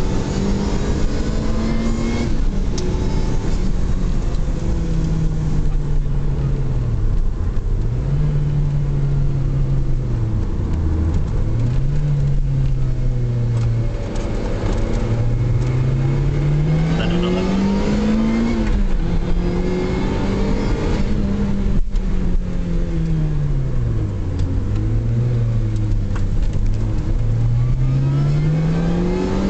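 Supercharged 1.8-litre four-cylinder engine of a Lotus Exige S 240, heard from inside the cabin while driving hard. The engine note repeatedly climbs with the revs and drops back at gear changes or lift-offs, over steady road noise.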